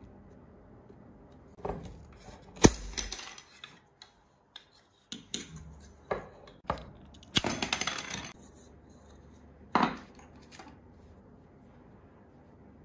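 A string of sharp clicks and knocks from tools and wooden sticks being handled on a wooden tabletop, with scissors cutting through a thin wooden stick. The loudest is a single sharp click about a fifth of the way in, and a longer run of quick strokes falls a little past the middle.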